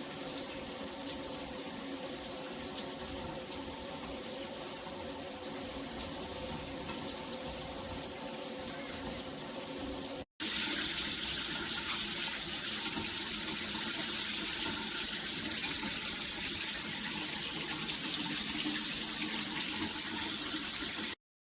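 Shower head running: a steady hiss of spraying water. It breaks off for an instant about ten seconds in and comes back with a higher hiss, then stops abruptly near the end.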